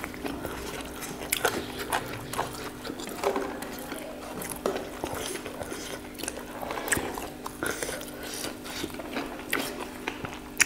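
Close-miked chewing and biting of meat: irregular wet clicks and crunches, over a faint steady hum.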